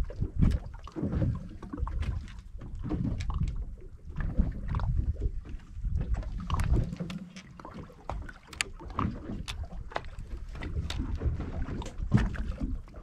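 Water and wind against a fishing boat, an uneven low rumble that rises and falls, with scattered sharp knocks and clicks.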